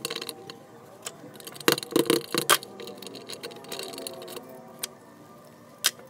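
Scattered metallic clicks and clinks of a screwdriver and small hardware being worked on a jet pump's pressure switch, with a quick cluster of clinks about two seconds in and a sharp click near the end.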